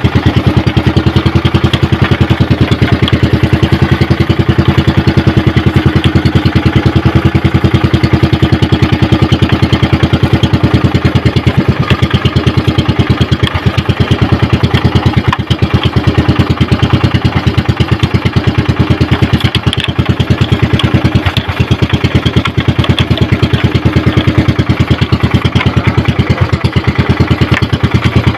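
Outrigger fishing boat's engine running steadily under way, a loud, fast, even chugging that does not change in speed.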